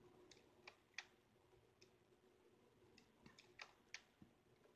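Faint, sharp clicks from the computer's pointer buttons as a drawing is made in a paint program: a few near the start and a quicker cluster about three seconds in, over a low steady hum.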